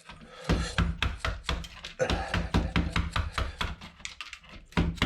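Rapid, irregular series of sharp knocks: a tool striking a computer motherboard to knock components off it, with a brief pause about four seconds in.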